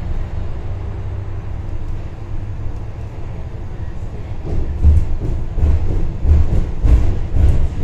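City bus in motion: a steady low road rumble, and from about halfway a regular run of heavy low thumps with brief rattles, roughly one and a half per second.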